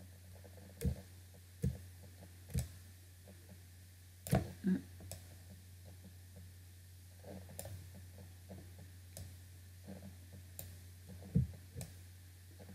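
Computer mouse button clicks, a few short sharp clicks at irregular intervals, with a steady low electrical hum under them.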